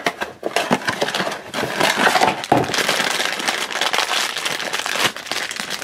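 A cardboard blind box being opened, then a shiny black foil bag crinkling and rustling in the hands.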